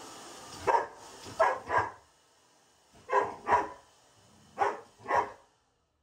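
Xoloitzcuintli (Mexican hairless dog) barking at a running hair dryer: seven sharp barks, one then three pairs. The dryer's steady blowing stops about two seconds in.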